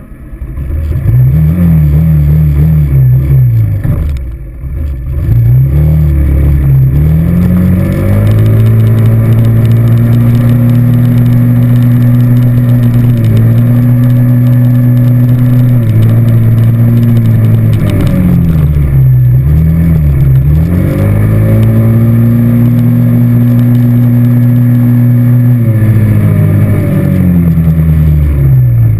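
ATV engine under way, rising in pitch as it accelerates and falling as it eases off several times. Between these it holds a steady pitch for long stretches while cruising.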